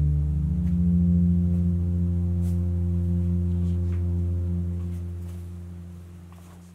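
Horror film score: a low ambient drone of several deep tones held together, fading slowly away near the end.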